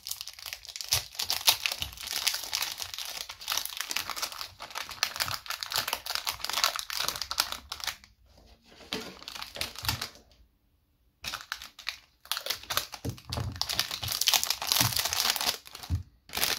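Thin plastic wrapping crinkling as it is peeled off a new 4x4 speedcube. It goes in two long stretches, with a pause of a few seconds about halfway through.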